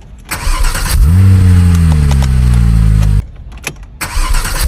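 Car engine cranked by the starter and catching about a second in, its revs flaring and then falling back toward idle. It cuts off abruptly, and a second crank-and-catch starts near the end.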